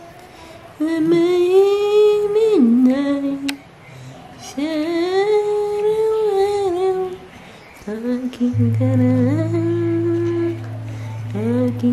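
A person humming a slow tune close to the microphone: long held notes that slide up and down, in phrases broken by short pauses. About two-thirds of the way through, a steady low tone comes in beneath the humming.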